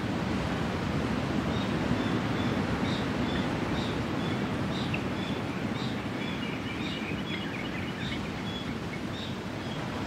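Steady seaside background noise of surf and wind, with a bird chirping again and again over it from about two and a half seconds in.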